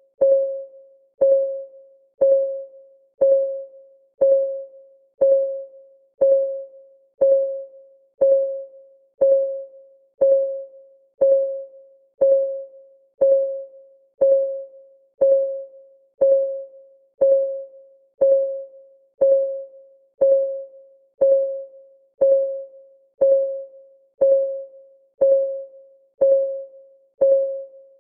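Countdown timer's clock ticking sound, ticking steadily once a second. Each tick is a short, pitched ring that fades quickly.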